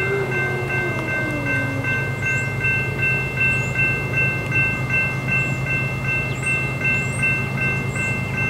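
Railroad warning bell ringing steadily at about three strikes a second over a low, steady rumble, with faint bird chirps.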